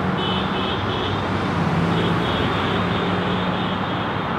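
Steady highway traffic noise from cars passing.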